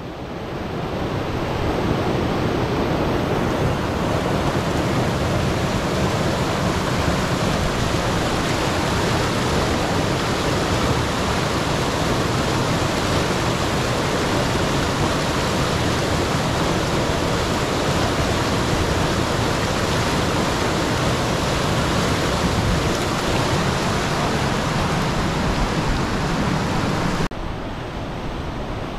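Steady rush of whitewater in a steep, fast creek rapid. The sound drops a little and grows duller near the end.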